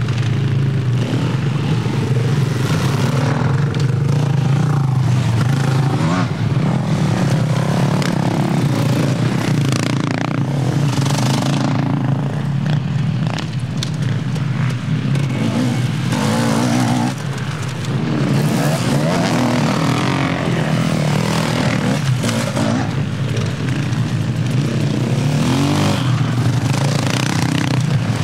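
Engines of off-road race vehicles running and revving, loud throughout, with the pitch shifting as they work.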